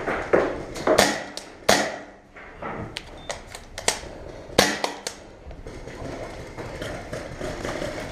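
Paintball gunfire: a string of sharp, irregular cracks from markers firing and balls striking, about ten in the first five seconds, then quieter.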